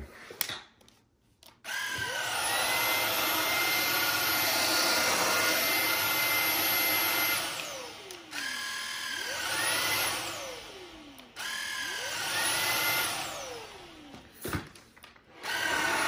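Greenworks cordless stick vacuum's motor switched on: it whines up to speed and runs steadily for about six seconds, then winds down with a falling whine. It is switched on twice more for short runs, each spinning up and dying away. A few clicks come before the first start and near the end.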